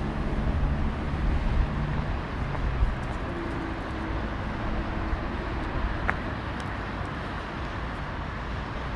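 Street traffic: a motor vehicle's engine runs close by for the first five seconds or so, then eases into a steady city background noise. A single sharp click sounds about six seconds in.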